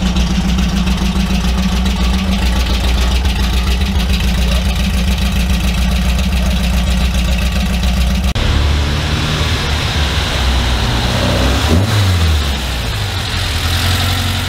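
Volkswagen Beetle engines running: a steady idle with a fast pulse, then a sudden change to another engine idling. Near the end it is revved once, rising and falling back to idle.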